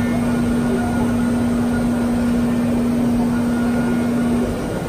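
A 5-axis CNC mill's spindle and end mill cutting a metal part under flood coolant: a steady, even hum over the hiss of coolant spray. The hum cuts out briefly near the end.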